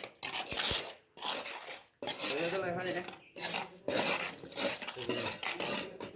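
Metal tools and pans scraping and clanking through wet concrete during a concrete floor pour, in repeated strokes about once a second.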